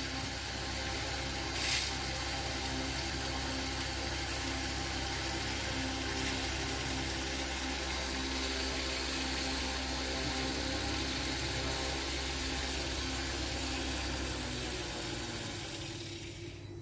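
Three small electric motors belt-driving a plastic propeller, running at speed with a steady whine and rush of air, then winding down near the end.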